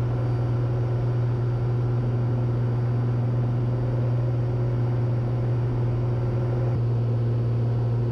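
Cessna 182T's six-cylinder Lycoming engine and propeller droning steadily at climb power, a constant low hum with no change in pitch.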